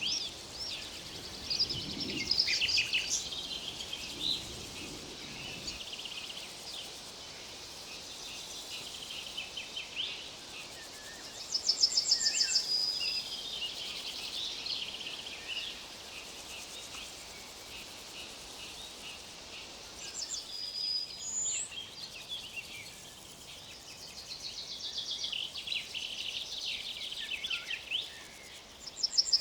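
Several songbirds singing, with a loud rapid trill phrase that ends on a held high note, heard about twelve seconds in and again at the end, over a faint steady hiss.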